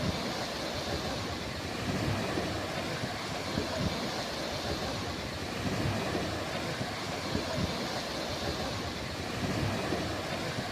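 Ocean surf washing onto the shore: a steady hiss with irregular low rumbles from wind buffeting the microphone.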